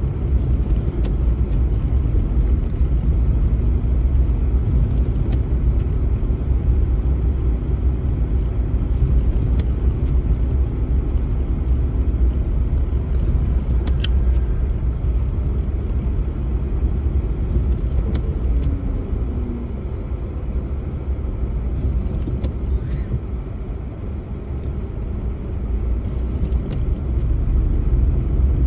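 Steady low rumble of a car driving, heard from inside the cabin, with a few faint ticks. The rumble eases for a few seconds about three quarters of the way through, then picks up again.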